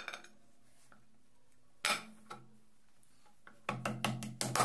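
Metal clutch cover being handled and seated on a motorcycle engine's crankcase: a few separate clinks and knocks, then a quick run of clinks in the last second.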